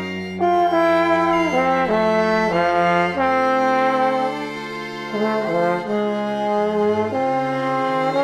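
Trombone playing a slow, lyrical melody, gliding into some notes, over held string chords.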